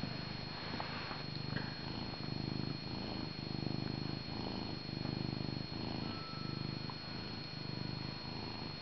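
Domestic cat purring loudly close to the microphone, the purr swelling and easing over and over with its breaths in and out.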